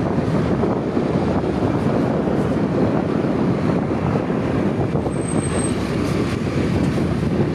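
Steady rush of wind buffeting the microphone over a motor scooter's engine running at road speed, recorded from the rider's seat.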